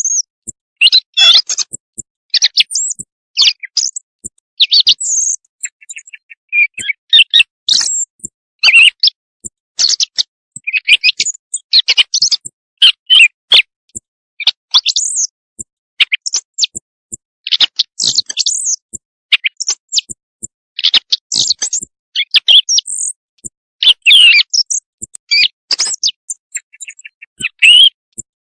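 Recorded thrush song played as a night-time hunting lure: a rapid run of short, varied chirps and whistles, phrase after phrase with brief gaps.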